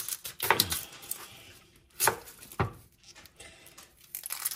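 Kitchen knife cutting the ends off an onion on a paper-towel-covered cutting board: a few sharp chops against the board, one about half a second in and two close together around two seconds in, with lighter taps between.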